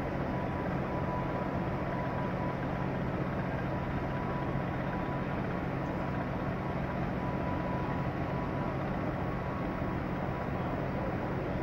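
Steady low drone of a moored ferry's diesel machinery running and exhausting through the funnel, with a faint high steady tone over the hum.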